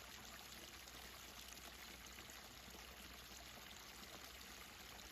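Faint, steady babbling of running water, like a small stream.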